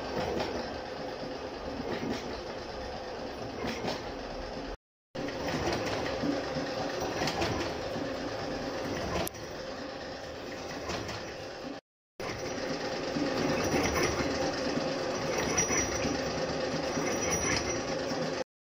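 Gear hobbing machine cutting the teeth of a module 5, 40-tooth helical gear: a steady mechanical rumble and clatter of the hob working through the metal blank. The sound drops out suddenly and briefly twice.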